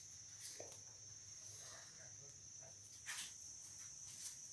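Near silence: faint background tone with a steady high-pitched trill and a couple of soft scuffs.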